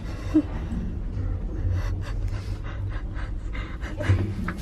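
A frightened woman breathing hard and gasping, with short breathy sounds about half a second in and near the end, over a steady low rumble.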